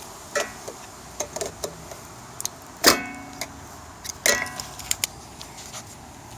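Metal tools and parts clicking and clinking as hands work around a lawn mower engine's carburetor, with two louder ringing clinks about three and four seconds in.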